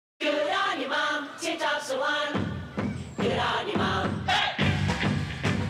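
Upbeat dance music for a commercial. A melody line plays alone at first, then bass and a drum beat come in about two seconds in.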